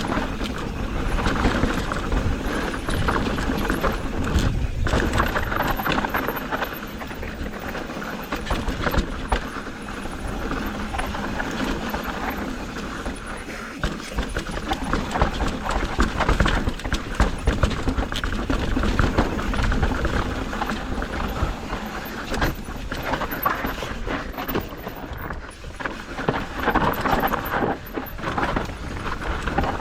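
Mountain bike riding down a rough, rocky dirt trail: tyres crunching and skidding over dirt and rock while the chain and frame rattle with constant small knocks, the noise rising and falling as the terrain changes.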